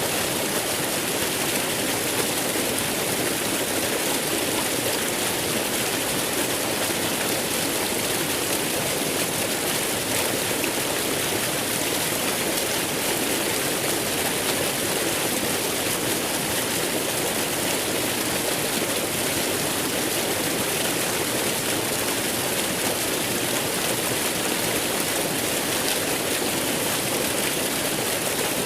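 Waterfall: water falling and rushing in a steady, unbroken roar of white noise.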